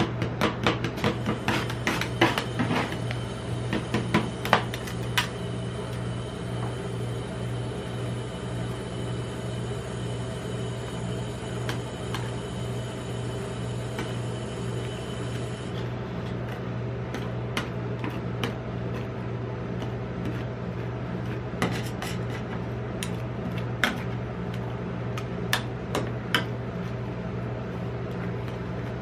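Metal spatulas clattering against a steel ice-roll cold plate: a fast run of chopping strikes through the first five seconds, then slower scraping and spreading with a few single taps. A steady low hum from the cold plate's refrigeration unit runs underneath.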